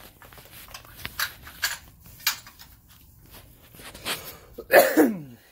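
Irregular clicks and rustles of cookware pieces and their packaging being handled while unpacking a box. About five seconds in, a short, loud voice-like sound falls in pitch.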